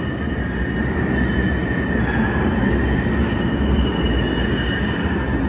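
NJ Transit Newark Light Rail car approaching into an underground station: a steady rumble of wheels on rail, with a high, steady wheel squeal over it.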